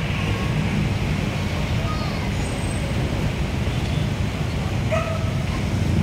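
Steady city traffic rumble, with a few short faint high-pitched calls over it about two and five seconds in.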